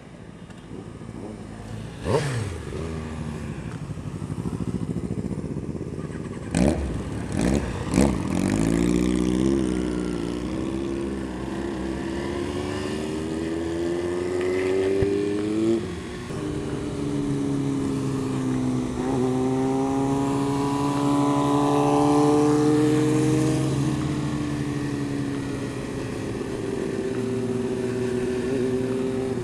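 Yamaha R15's single-cylinder engine under way, its note climbing in pitch as the bike accelerates, dropping suddenly at an upshift about sixteen seconds in, then climbing again and settling to a steady cruise. A few sharp knocks come in the first eight seconds.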